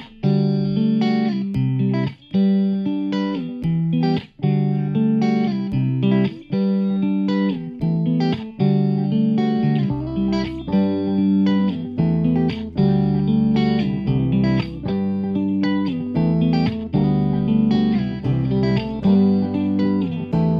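Background music led by plucked guitar, playing a rhythmic melody of repeated notes. A low bass line comes in about halfway through.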